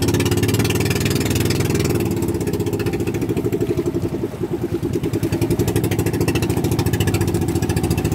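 Engine of a motorized outrigger boat (bangka) running steadily under way, a fast, even low chugging.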